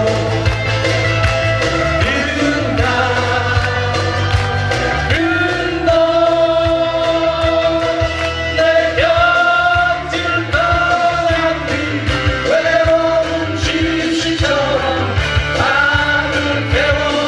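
Live folk band playing a 7080-era Korean folk song: strummed acoustic guitars and congas under a woman singing lead into a microphone, heard through the PA.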